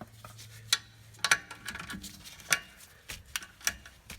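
Sharp metallic clicks and taps of a hand ratchet with a 7 mm Allen socket being fitted to and worked on the rear brake caliper bolts. The clicks come irregularly, several in all, with the loudest a little over a second in and again about two and a half seconds in.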